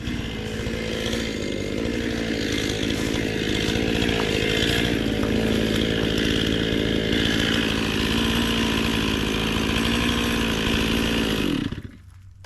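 Stihl MS 261 two-stroke chainsaw running steadily at full throttle through a felling cut in a big ash trunk, then dropping away abruptly near the end.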